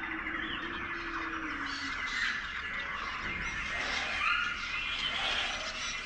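Rural ambience of many birds chirping and calling at once, short overlapping whistles and chirps from several birds.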